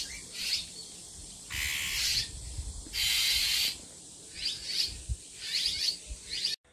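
Bull-headed shrike (mother bird) giving harsh, rasping scolding calls, two long ones of about half a second each, with short sharp chirps between them: an alarm call defending her nestlings. The sound cuts off suddenly near the end.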